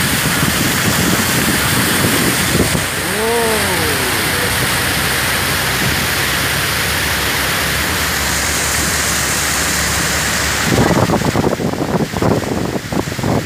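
Car driving through floodwater on the road: a steady rush of water spray and tyre noise. A short rising-and-falling tone comes about three seconds in, and a run of irregular knocks and splashes near the end.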